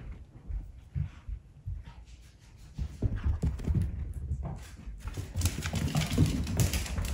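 A dog moving about: scattered knocks and scuffs, then from about five seconds in its claws clicking and paws thudding on a hardwood floor as it trots.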